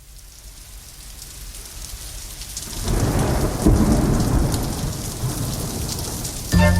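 Steady rain with thunder: the rain grows louder and a deep thunder rumble swells about three seconds in, then fades slowly. Music starts just before the end.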